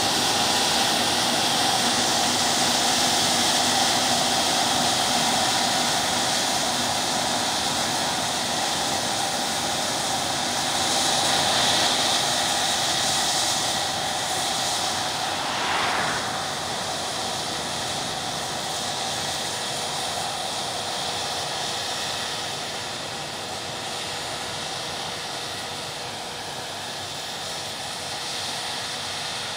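Combine harvester running at work, a steady engine and machinery drone with a whine and hiss over it, slowly fading over the second half.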